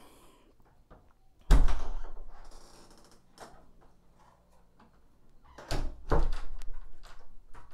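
A sudden thump about a second and a half in that dies away over about a second, then a few more knocks near the end.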